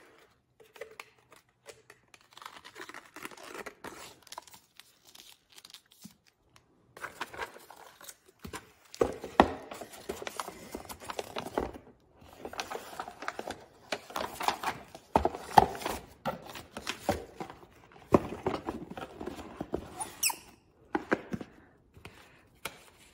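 Paper and cardboard packaging rustling and crinkling as it is handled and unwrapped, in irregular bursts with a few sharp taps, mostly from about seven seconds in.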